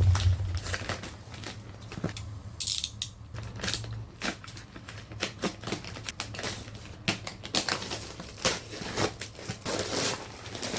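Packaging and small items being handled: irregular clicks, taps and crinkles of plastic and cardboard, with a short rustle about three seconds in. A low rumble fades out in the first half second.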